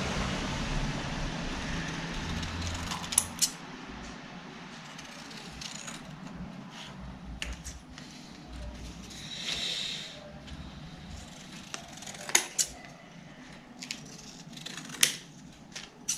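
Scissors snipping through thin cardboard, a few sharp cuts spread out with pauses between them, and the rustle of cut card pieces being handled.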